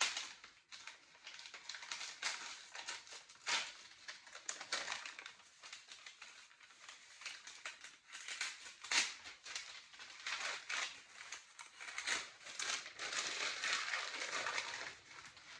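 Wrapping being torn open and crinkled by hand around a book, with irregular rustles, tears and crackles that thicken into steadier rustling in the second half.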